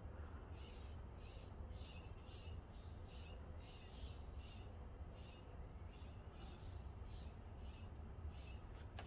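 A bird calling over and over, short high notes at a steady pace of about two a second, faint, over a low steady rumble.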